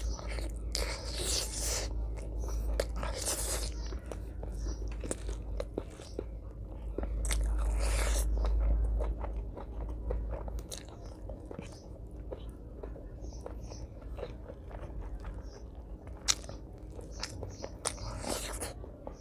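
Close-miked eating by hand: wet chewing and mouth smacks on mutton curry and rice, many small clicks with several louder noisy bursts.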